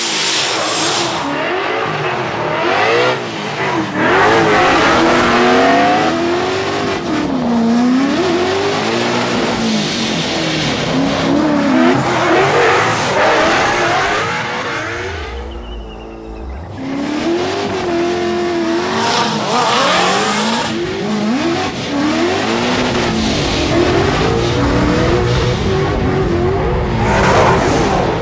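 Ford Mustang RTR Spec 5-D drift cars revving hard, engine pitch swinging up and down again and again as the throttle is worked, with squealing tyres sliding on the asphalt. About halfway the engines drop back for a moment before revving up again.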